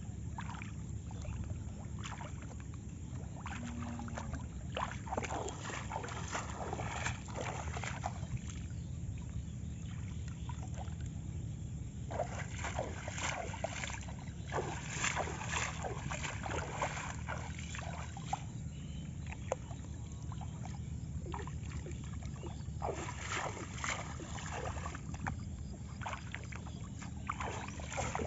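Shallow water splashing and sloshing in irregular bursts as a person wades through a flooded paddy field and works a gill net into the water, over a steady low wind rumble on the microphone.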